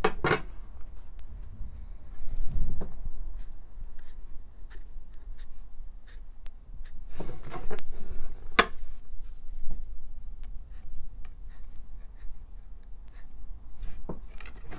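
Marker pen drawing short dashed strokes along a ruler on a board, with the ruler set down and shifted in scattered clicks and knocks; one sharp click a little past halfway.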